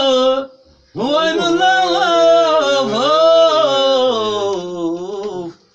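A man singing one long, wavering folk phrase with no drum playing, starting after a short pause about a second in.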